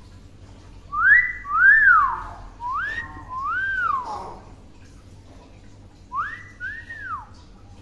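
Hill myna whistling: four quick rising-and-falling whistled notes, then after a short pause two more.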